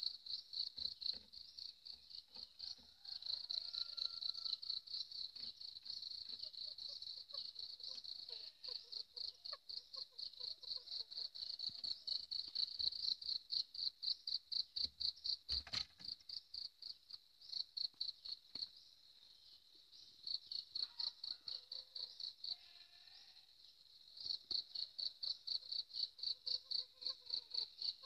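An insect chirping in a fast, even, high-pitched pulse of about four chirps a second, pausing briefly twice in the second half. A single sharp knock about halfway through.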